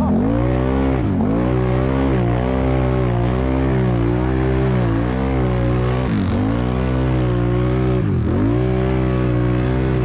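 Can-Am Renegade 1000 XMR's V-twin engine running hard, heard from on board the ATV. The engine note dips sharply and climbs back several times.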